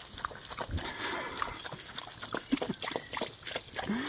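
Dog lapping and biting at a thin jet of water from a garden hose: quick, irregular wet smacks and slurps, with the water spattering.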